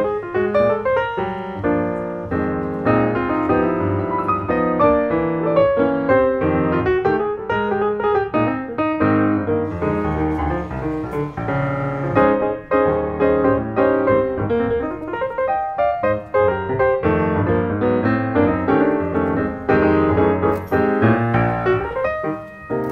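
Background music: a piano playing quick runs of short notes without a pause.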